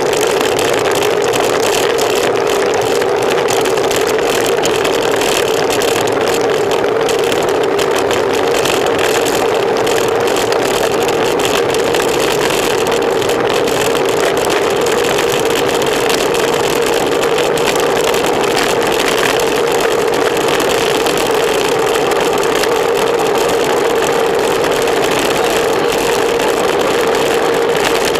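Steady rush of wind over the microphone of a camera mounted on a racing bicycle, mixed with tyre noise on asphalt, at a constant level throughout.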